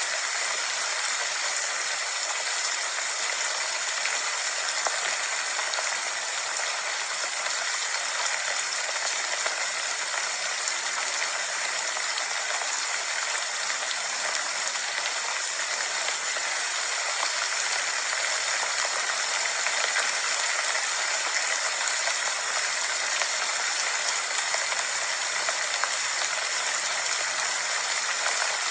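Rain falling steadily: an even hiss made of many fine drop ticks, with no change in strength.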